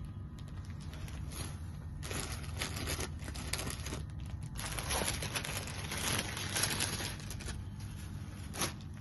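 Rustling and crinkling as sarees are handled and unfolded, in irregular swells with small clicks, over a low steady hum.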